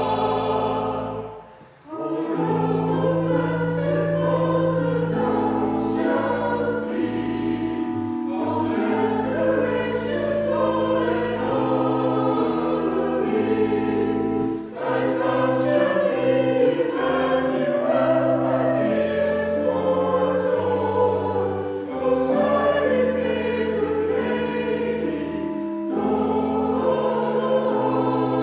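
Church choir singing a carol, over sustained low notes, with a short break between phrases about two seconds in.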